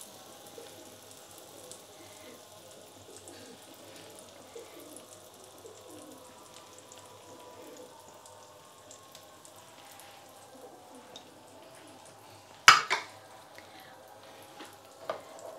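Gram-flour batter sizzling faintly in a thin film of oil in a shallow pan over a low flame, with fine crackles. A single sharp knock near the end.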